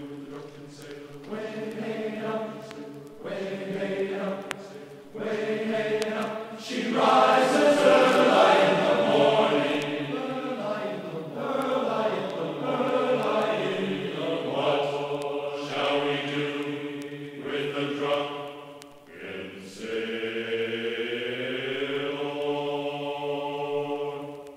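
Background vocal music: slow choir-like chanting with long held notes.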